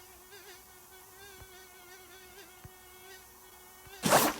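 A small electric motor whines steadily, its pitch wavering slightly, with a brief loud rustle about four seconds in.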